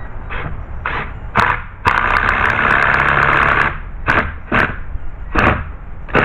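Cordless screw gun driving a screw into the gate: a few short bursts of the motor, then one run of about two seconds, then more short bursts.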